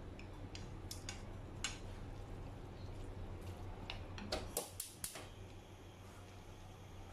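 Wooden chopsticks tapping and clicking against a nonstick frying pan while stirring spaghetti: scattered light taps, then a quick run of louder clicks about four to five seconds in, over a steady low hum.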